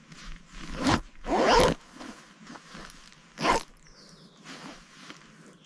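Three short rasping swishes: a brief one about a second in, a longer one just after, and another about three and a half seconds in.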